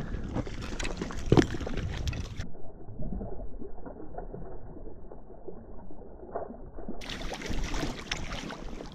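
Hooked trout thrashing and splashing at the water's surface beside a float tube, in irregular splashes; the sound goes muffled for several seconds in the middle.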